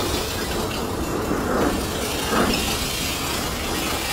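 Freight train cars rolling past, a steady noise of wheels and rattling metal.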